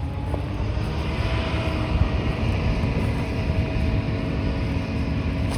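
Large diesel farm machine engine running steadily under load, a constant low rumble with a steady whine over it.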